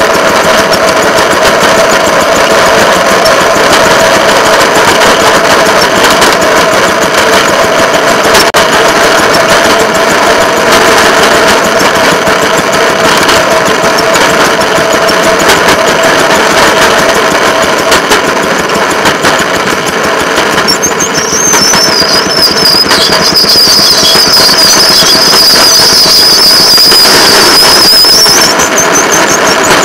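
Track motor car (speeder) engine running steadily as the car rolls along the rails. A high-pitched squeal joins about two-thirds of the way in and lasts several seconds as the track curves, the sound of steel wheels grinding against the rail on the curve.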